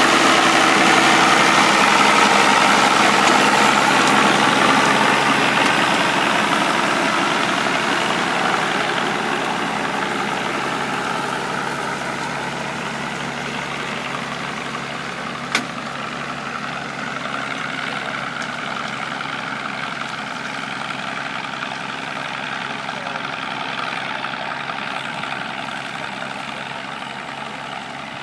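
Massey Ferguson 1200 tractor's six-cylinder diesel engine running steadily under load while ploughing. It grows gradually fainter over the first ten seconds or so as the tractor moves away, then holds steady. A single sharp click comes about halfway through.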